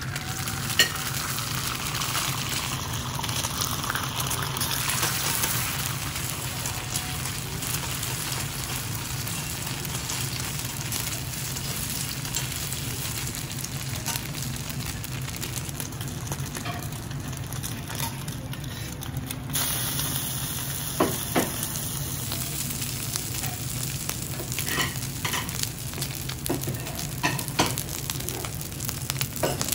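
Beaten egg sizzling in hot oil on a flat iron griddle, a steady hiss broken by scattered sharp taps and scrapes of a metal spatula working the egg, more of them in the second half.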